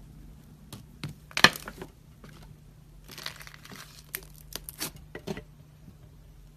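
Slime being squeezed and pulled, crackling and popping in irregular bursts, the sharpest crackle about one and a half seconds in.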